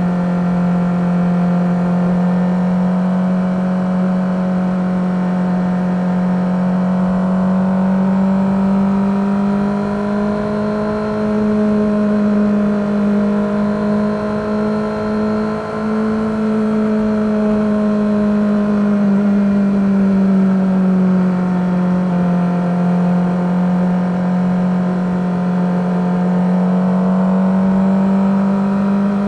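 Suzuki GSX-R600's inline-four engine running under way at a steady pitch. The pitch rises a little about ten seconds in, eases off around twenty seconds, then picks up again near the end.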